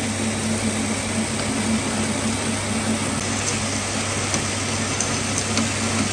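Metal lathe running steadily: a continuous motor hum under broad machine noise, with faint light ticks in the second half.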